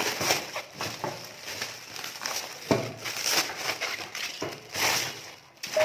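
Packaging crinkling and rustling as it is pulled off and handled, with a sharp knock about two and a half seconds in.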